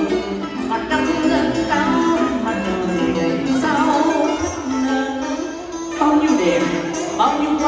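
Live Vietnamese tân cổ music: plucked strings playing bending, wavering notes over other instruments.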